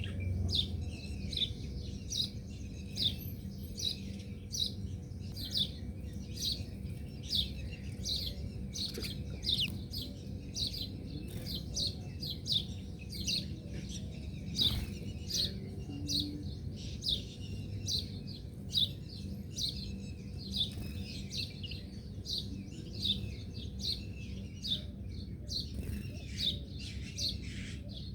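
A bird chirping steadily, repeating short high notes that slide down in pitch, about two a second, over a low steady rumble.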